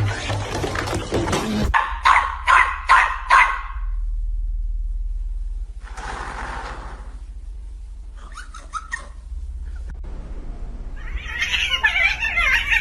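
A domestic cat meowing, four short meows in quick succession, followed later by a few more brief calls.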